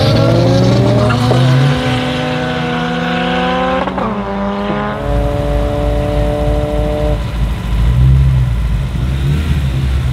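Widebody BMW E92 coupe's engine revving up and held at steady high revs, with a sharp crack about four seconds in. It drops back to a rough, low idle about seven seconds in.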